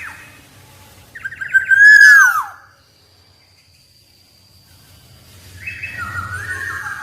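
Black-naped oriole calling: a short phrase of whistled notes sliding down in pitch about a second in, a pause, then another phrase starting near the end.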